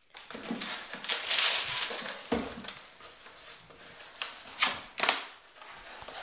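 Cardboard box and packaging being handled and pulled open: rustling and scraping, loudest in the first two seconds, with a few sharp knocks about two, four and a half and five seconds in.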